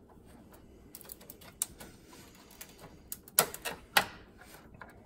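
Hands working the upper radiator hose off its connection at the radiator, making scattered sharp plastic clicks and taps, with two louder knocks about three and four seconds in.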